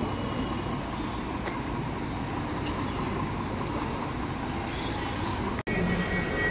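Bus station ambience: the steady low rumble of a state transport bus engine running, with a faint steady tone above it. Near the end the sound cuts off for an instant and gives way to a different, steadier background hum.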